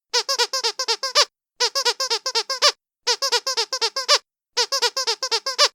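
Trixie squeaky duck dog toy squeezed fast, giving four bursts of seven or eight high, quack-like squeaks each, with a short pause between bursts.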